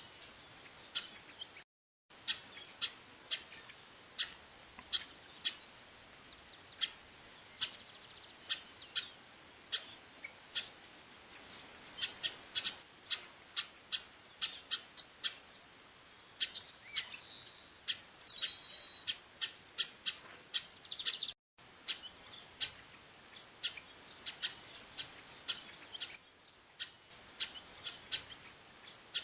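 Female chestnut-capped blackbird calling over and over: short, sharp, high call notes about two a second, over a steady high buzz of insects. The sound cuts out briefly twice.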